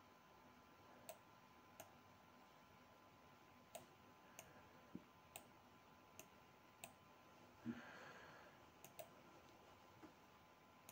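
Near silence with about a dozen faint, irregular clicks from working a computer mouse and keyboard, and a brief soft rustle partway through.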